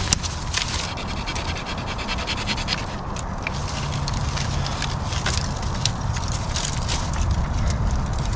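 A dog panting close by, with scattered sharp cracks and rustling of dry twigs and branches being handled.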